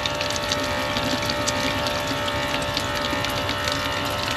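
Small rechargeable electric water pump running steadily with a constant hum, with water splashing as it fills a container.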